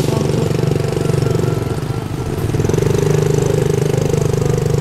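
A vehicle engine runs steadily with a fast, even pulse. It eases off about two seconds in, then picks up again about a second later.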